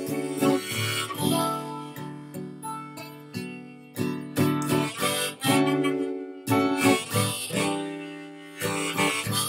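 Harmonica playing held melody notes over a strummed acoustic guitar.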